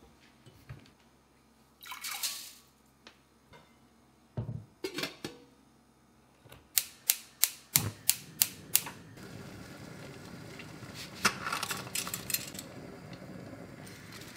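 Steel pot knocking on a gas hob's grate, then a gas burner's electric igniter clicking about four times a second, about nine clicks, until the burner lights. After that comes the steady hiss of the gas flame.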